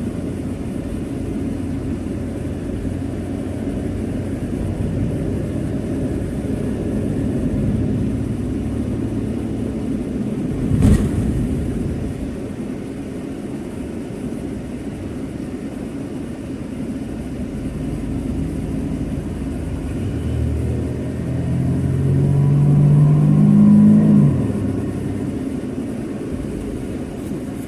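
A road vehicle driving, with steady low road and engine noise. There is a single sharp knock about eleven seconds in, and the engine speeds up with a rising pitch a little past the middle.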